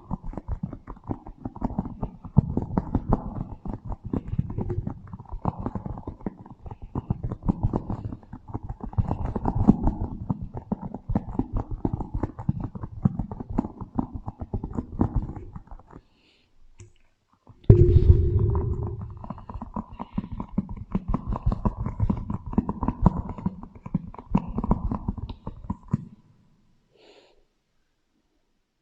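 Close-up crackling, squishing fruit sounds with an added echo effect, dense and irregular with a heavy low rumble. They break off about 16 s in, restart suddenly and loudly about a second and a half later, and stop about 26 s in.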